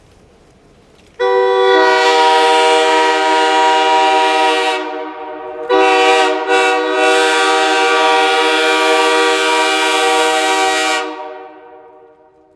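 Steam locomotive whistle sounding a chord of several notes in two long blasts. The first eases off about five seconds in, the second follows straight after and fades away near the end.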